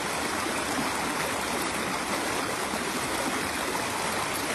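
Shallow rocky stream running over stones: a steady, even rush of water with no breaks.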